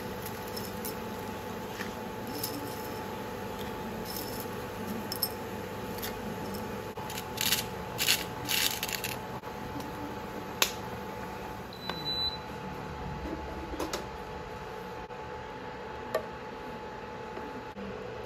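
Pasta boiling in a pot on a glass-top hob: a steady bubbling hiss over a steady hum. A few clinks and clatters of a utensil against the pot come in the middle, with a sharp click after them and a short high beep.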